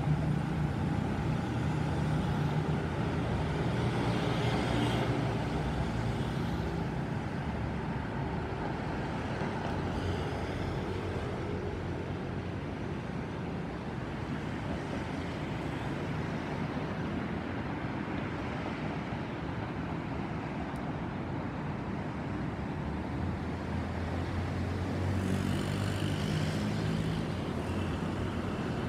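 Steady background road traffic noise, with louder passing vehicles near the start and again near the end.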